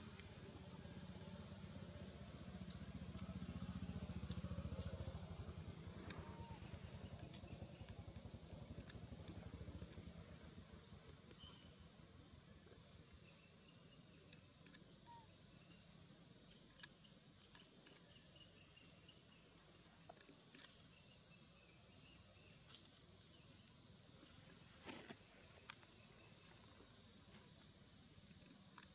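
Steady, high-pitched drone of an insect chorus, unbroken throughout, with a faint low rumble in the first several seconds.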